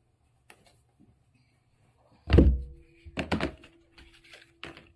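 A box set down on a wooden table with a thunk about two seconds in. It is followed by a few knocks and clatters as the box is opened and scissors are taken out, with a faint steady tone under the second half.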